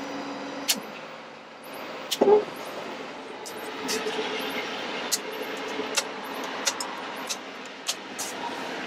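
Dashboard rocker switches clicking as the PTO and work lights are switched off, a dozen or so sharp separate clicks spread over several seconds. Under them the truck's engine runs steadily at idle, heard from inside the cab.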